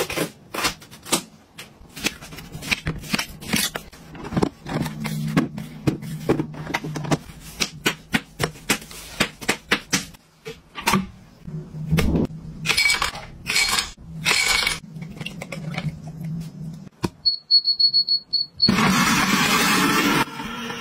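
Kitchen knife cutting a watermelon on a plastic cutting board: a long run of knocks, taps and slicing scrapes. Near the end an appliance beeps in a quick series, then a countertop blender starts and runs loudly, blending the melon into juice.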